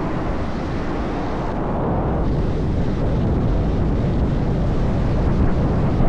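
Wind buffeting the microphone with a loud, steady low rumble, the sound of travelling fast downhill on roller skates.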